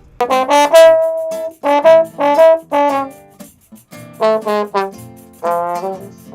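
Trombone playing a melody of short notes with one long held note about a second in, accompanied by acoustic guitar and pandeiro.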